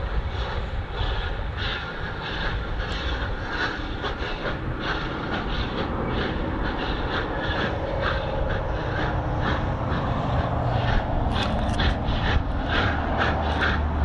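Steam locomotive working along the line: a low rumble under steady rhythmic exhaust chuffs, about two to three a second, which grow more distinct in the second half.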